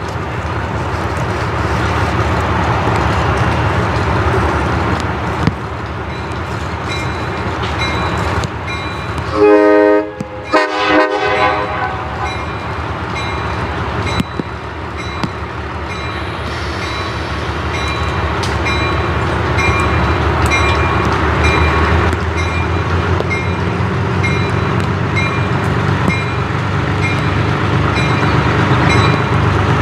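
Diesel locomotive approaching slowly, its engine running steadily and growing louder, with two short horn blasts about a third of the way in. A high ringing tone repeats evenly through the second half.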